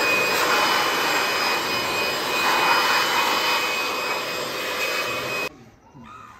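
Handheld electric air blower running steadily with a high whine as it blows air over a tractor's rear hitch and linkage. It switches off suddenly about five and a half seconds in.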